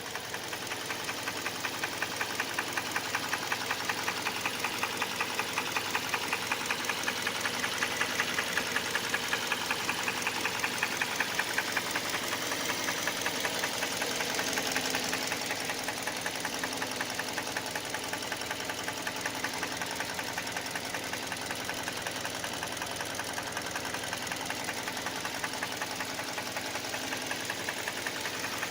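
Hyundai Elantra 1.8 four-cylinder petrol engine running with a rapid, regular knock, a little louder for a while midway through. The knock is one the owner hears both cold and hot and that grows with engine speed; he does not know its cause.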